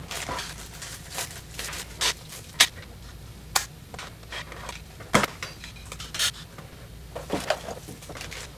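Irregular sharp plastic clicks and taps with some crinkling, from a relay circuit board's plastic enclosure and its plastic packaging being handled and fitted together, with a handful of louder clicks spread through.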